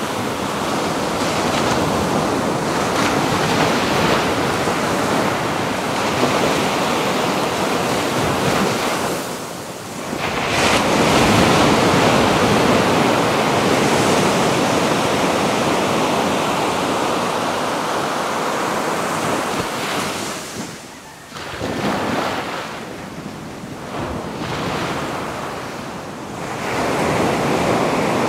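Pacific ocean surf breaking on a beach, a continuous wash that rises and falls with each wave. It eases briefly about ten seconds in before a loud surge, and dips again about two-thirds of the way through before building back.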